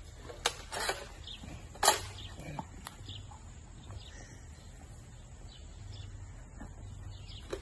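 Flat-coated retriever puppies yipping a few times in short, sharp cries, the loudest about two seconds in and one more near the end, with faint birds chirping behind.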